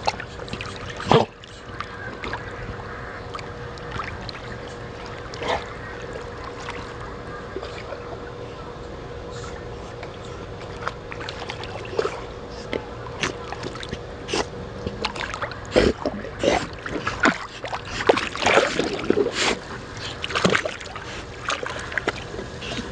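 A dog paddling through pool water, its strokes splashing and sloshing, with scattered splashes that come thick and fast in the second half. A faint steady hum lies underneath.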